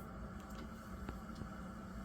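Quiet room tone: a low, steady electrical hum with a few faint clicks.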